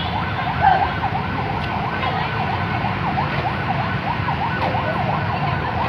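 Siren yelping: a rapid, repeating fall and rise in pitch, about three sweeps a second, running steadily over a low background hum.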